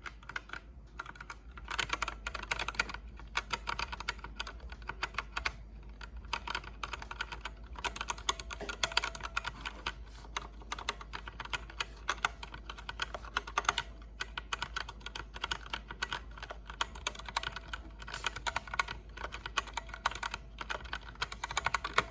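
Rapid, continuous typing on a MageGee Star61 60% mechanical keyboard, its keys clacking in quick irregular runs, a sound test of the keyboard. The typing picks up about two seconds in.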